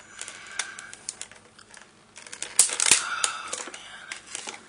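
Irregular clicks and crackles of plastic toy packaging being handled while wire twist ties are untwisted, with a cluster of sharper clicks a little past halfway.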